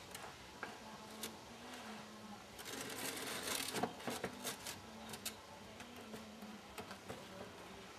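Pine folding Adirondack chair being handled and pressed on: scattered light wooden clicks and knocks, with a louder scraping rustle about three seconds in.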